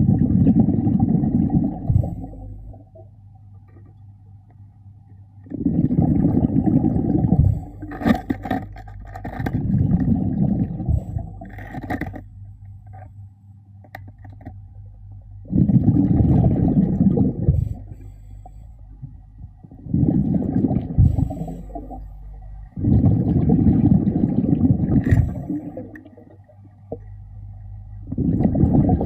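Underwater breathing of a diver: exhaled bubbles rumbling out of the regulator in bursts of about two seconds, roughly every four to five seconds, over a steady low hum.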